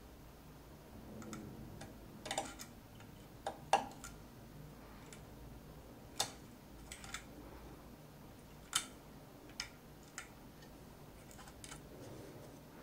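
A dozen or so faint, irregular sharp ticks of a hobby knife blade nicking away thin PLA strings from a small 3D-printed figure; these are stringing left by the many retractions in the print.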